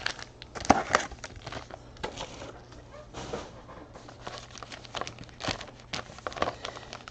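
Trading-card packaging being handled and opened: plastic wrapper crinkling and tearing, with scattered short crackles and clicks.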